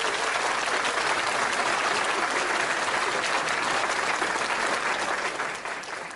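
A crowd applauding, many hands clapping in a steady dense patter that eases off slightly near the end.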